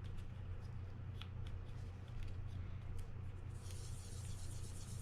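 Light clicks and handling of small fishing-reel drag washers during cleaning, over a steady low hum. About three and a half seconds in, a steady hiss starts and runs for over a second.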